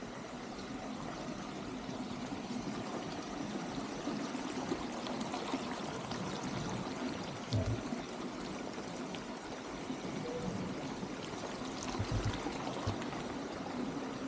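Water pouring and splashing steadily from a fountain into a pool. A few short low thumps come about halfway through and again near the end.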